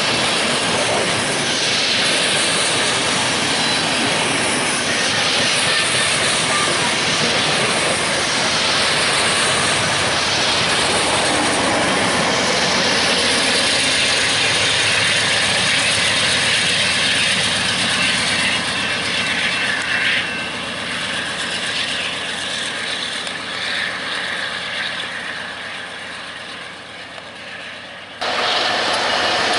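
Freight train rolling past close by: covered hopper cars clattering along the rails with a few thin high squealing tones, and a GE diesel locomotive passing about halfway through. The noise eases off after about twenty seconds and cuts off abruptly near the end.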